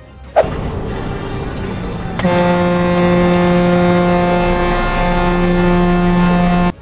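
A loud bang about half a second in, typical of a vehicle collision, then a vehicle horn sounding one long, steady blast that cuts off suddenly near the end.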